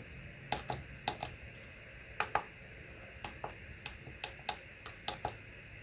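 Irregular series of faint clicks from an iPod 4th Gen's click wheel being scrolled and its centre button pressed again and again; the centre button is not working.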